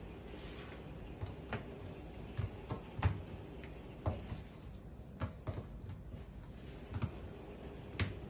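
Irregular light taps and knocks, roughly one a second, as hands lift, cross and set down strands of bread dough on a granite countertop while braiding.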